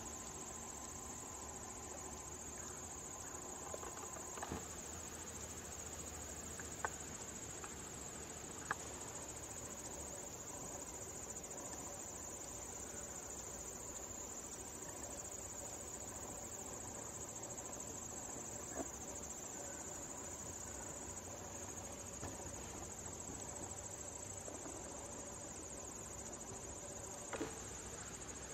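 Steady high-pitched chorus of chirring insects, with a few short clicks scattered through it.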